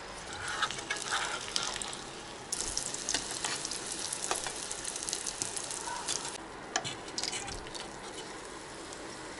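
A cheese-stuffed flatbread frying in hot oil in a pan, sizzling and crackling, with a few clicks of a fork against the pan. The sizzle comes in suddenly about two and a half seconds in and eases off after about six seconds.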